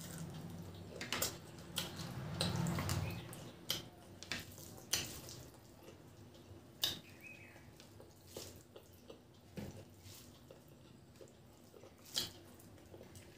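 Close-up wet chewing and lip-smacking of a mouthful of rice and curry eaten by hand. It is fuller in the first few seconds, then continues as sharp, irregular smacking clicks.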